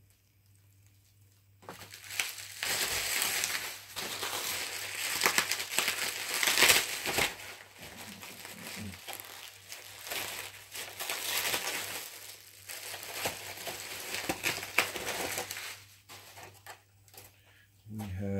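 Bubble wrap and plastic packaging crinkling and rustling as it is handled, with many small crackles. It starts about two seconds in and dies away near the end.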